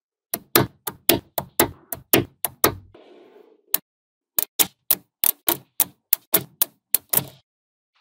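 Small magnetic balls snapping together one after another: a quick run of sharp clicks, about four a second, in two runs with a short break in the middle.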